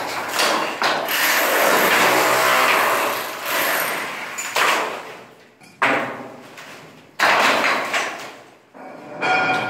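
A power drill bores into the concrete ceiling for the first few seconds. It is followed by about three sharp hammer knocks, each trailing off, as damaged ceiling plaster is chipped away.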